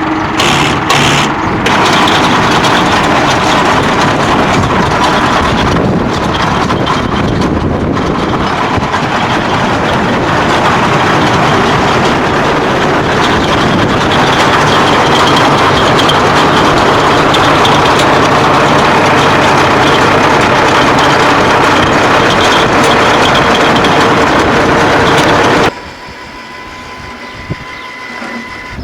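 Hesston 5540 round baler running on a tractor, a loud, steady mechanical noise. Near the end it drops abruptly to a much quieter running sound with a steady whine.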